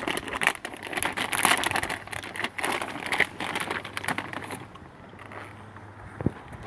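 Crinkling and rustling of a plastic dog-treat bag being handled for about four and a half seconds, then quieter, with a single thump near the end.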